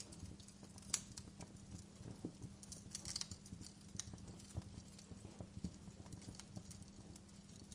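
Wood fire crackling: irregular sharp pops and snaps over a steady low rumble, with a cluster of pops about three seconds in.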